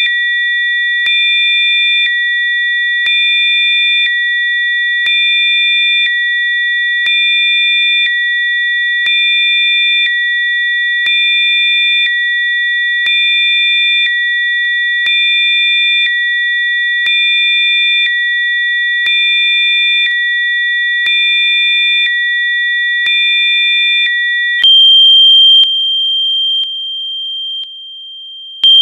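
Electronically generated pure sine tones of a Rife-frequency programme: several steady high-pitched tones sound together, swelling slightly louder every two seconds. About 25 seconds in they change to a single high tone, which steps down in loudness near the end.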